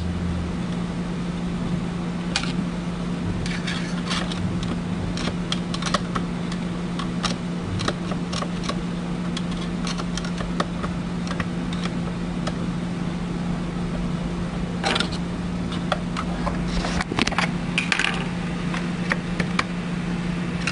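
Small parts of a syringe pump being handled and fitted during reassembly: scattered light clicks and taps, with a busier cluster of them about three quarters of the way through, over a steady low hum.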